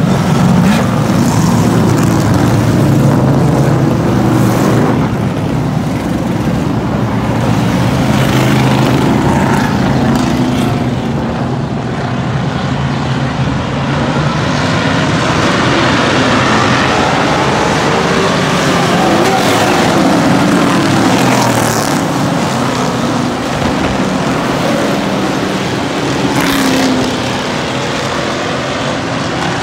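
A full field of street stock race cars racing, many engines at full throttle together. It is loudest as the pack passes close in the first ten seconds or so, then quieter as the cars run along the far side of the track.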